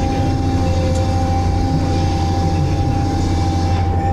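A Multidocker log-handling machine running under load as its grapple lifts a bundle of pulpwood logs: a steady low engine drone with a steady high-pitched whine over it.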